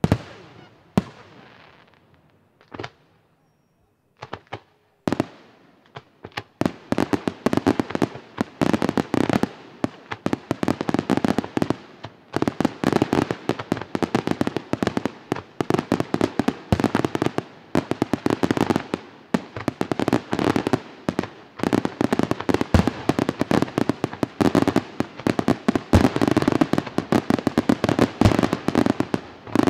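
Aerial fireworks display: a few separate shell bursts with gaps between them, then from about six seconds in a dense, continuous barrage of rapid bangs and crackling.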